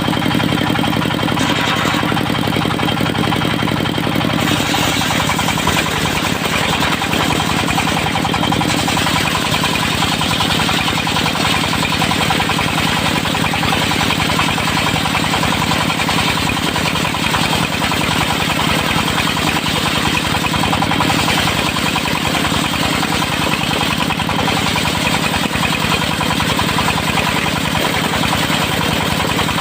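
Diesel engine of a portable circular-blade sawmill running steadily with a rapid pulsing beat. About four and a half seconds in its note shifts and more high-pitched noise joins and holds, typical of the blade working in the wood.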